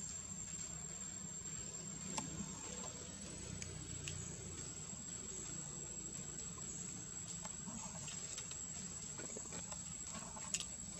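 Outdoor ambience: a steady high-pitched insect drone over a low rumble, with a few sharp clicks.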